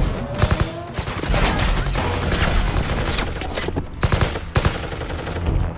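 Gunfire in a film shootout: many shots from several guns in quick, irregular succession, the loudest cracks about half a second in and around four seconds in.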